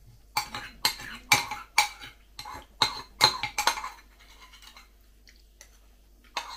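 A metal spoon scraping and clinking against the inside of a ceramic soup bowl, about eight quick strokes in a row, then a pause, then more scraping near the end, as the last of the soup is scraped up.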